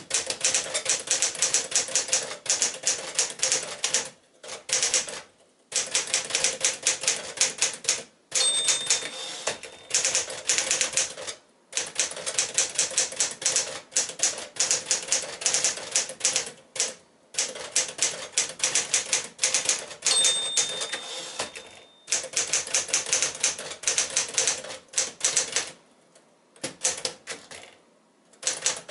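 1965 Smith-Corona Sterling manual typewriter being typed on: runs of rapid key strikes broken by short pauses. Twice, about 8 and 20 seconds in, a short ringing tone sounds, the margin bell warning of the end of a line.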